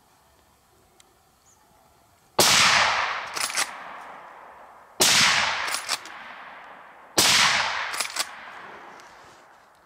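Three hunting rifle shots about two and a half seconds apart, each followed by a long echo dying away, with a quick double click about a second after each shot as the bolt is worked for the next round.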